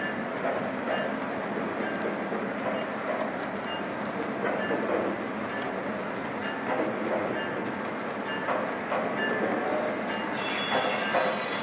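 O-gauge model trains running on three-rail track: a steady rolling rumble of wheels and motors.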